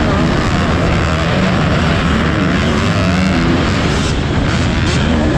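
Motocross bike engine at race pace, heard from a camera mounted on the bike, its note rising and falling with the throttle, over a dense rushing noise and the engines of the other bikes in the pack.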